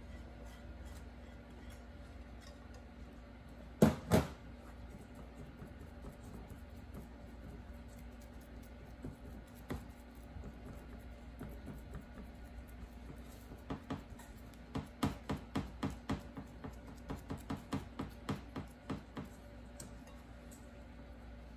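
Two sharp knocks about four seconds in as a ceramic bowl is set down on a stainless steel counter, then a run of soft, quick pats and taps as hands press crumbled cheese into a metal ring over the kadayif layer. A low room hum underneath.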